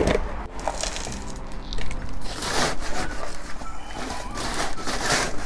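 Gritty rustling and scraping of potting gravel and soil being handled during repotting, with a sharp knock at the start and two longer spells of rustling about two and a half and five seconds in.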